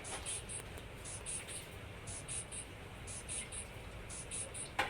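Soft, very high ticking in quick groups of three, about once a second, over a faint low hum, with one sharp knock near the end.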